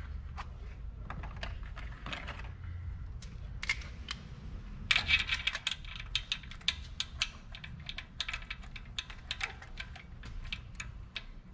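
Ratchet and spark plug socket clicking in quick, irregular runs as a new spark plug is run down into the cylinder head, snugged before torquing. The clicks thicken about halfway through, over a steady low shop hum.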